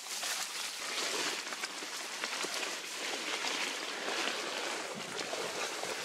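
Dry tussock grass rustling and crackling against the camera and clothing as a hunter pushes and crouches through it, a steady rustle with many small crackles.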